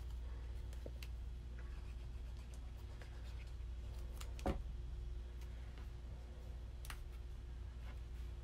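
Cardstock being handled and glued on a desk: faint paper rustles and light taps, with one sharper knock about halfway through, over a steady low hum.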